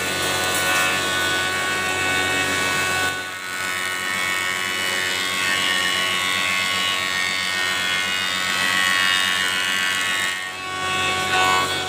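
Stationary thickness planer running, its cutterhead planing a board fed through slowly; a steady machine whine that dips briefly about three seconds in and again near the end.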